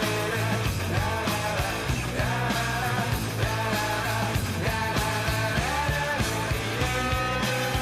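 Rock song with drums, guitar and a singing voice.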